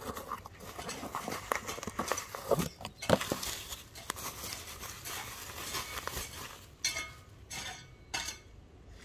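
Bubble wrap and cardboard packing handled by hand: a dense crinkling and crackling of plastic as the parcel is opened and the wrap is pulled apart, then a few short separate rustles near the end.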